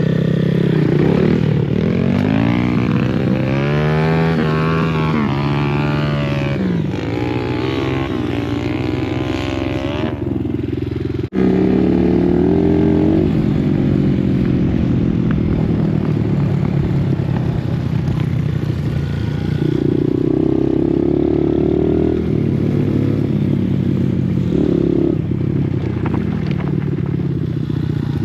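Dirt bike engine being ridden, revving up and down so its pitch climbs and falls again and again, with a brief break about eleven seconds in.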